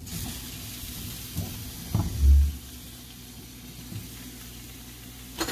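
Faint steady sizzling from a stainless electric skillet as pieces of Chinese sausage and chicken are dropped onto the noodles, with a dull low thump about two seconds in.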